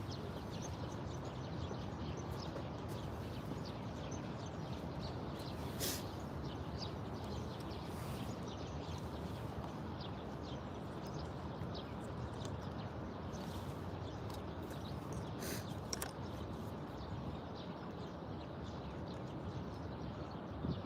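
Outdoor park ambience: a steady low background noise with scattered faint bird chirps, and two short sharp clicks about six and fifteen seconds in.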